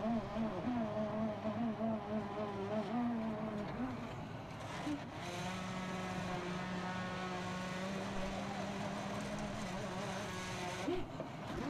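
Small engine of concrete-site machinery running with a steady hum. Its pitch wavers for the first few seconds, then holds even until near the end.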